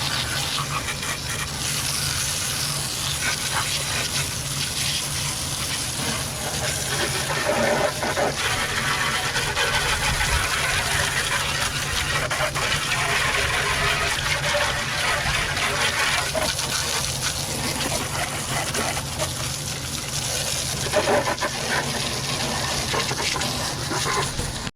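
Water spraying hard and steadily from a hose, rinsing Super Clean degreaser off a lawn mower, with a steady low hum underneath. It cuts off suddenly at the end.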